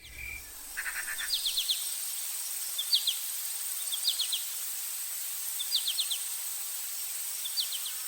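A bird chirping in short phrases of three or four quick high notes, repeated every second or so, over a steady hiss.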